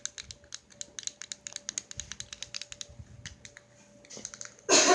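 Plastic fidget cube clicking quickly and unevenly under the fingers as its buttons and gear controls are worked. A louder rush of noise comes near the end.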